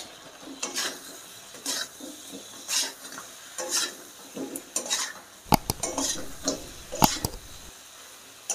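Long metal spatula stirring and scraping fried rohu fish pieces and potatoes through masala in a kadai, in irregular scraping strokes, with a couple of sharper clanks against the pan about five and seven seconds in.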